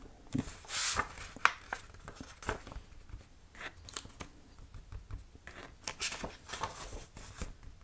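Sketchbook pages being turned and handled: a run of short papery rustles and flicks, the largest about a second in and another cluster around six seconds in.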